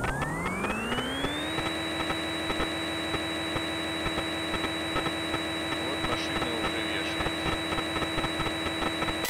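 CNC machining simulator's synthetic spindle sound. It winds up in a rising whine over the first second and a half, then holds a steady high-pitched tone with a dense crackle of clicks as the simulated end mill cuts the block.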